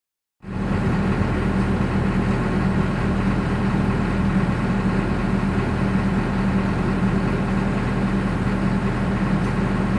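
Heavy engine running steadily at an even speed, with a strong low hum.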